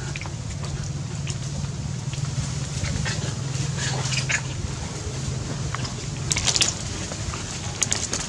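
A troop of long-tailed macaques foraging on dry leaves and dirt: scattered short, high-pitched sounds and crackles, a flurry of them near the end, over a steady low hum.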